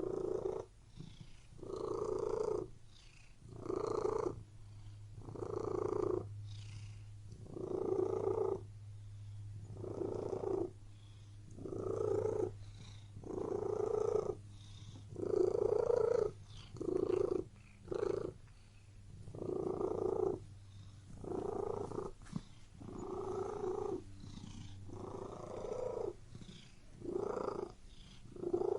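Domestic cat purring close up, swelling louder and fading about every two seconds, a little quicker for a few cycles in the middle, over a steady low hum.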